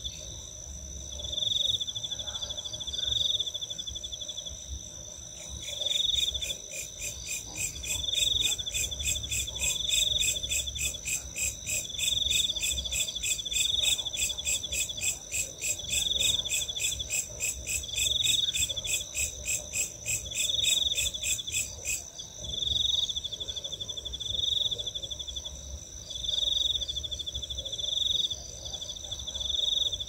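Night insect chorus: crickets trill with a steady high tone and repeated short chirps. From about 5 seconds in until about 22 seconds a second insect joins with a loud, fast, pulsing rasp, then stops suddenly.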